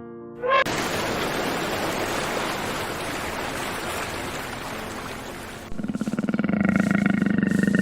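A big cat roaring: a long, rough, breathy roar that slowly fades. Near the end it gives way to a louder, steady, buzzy pitched sound.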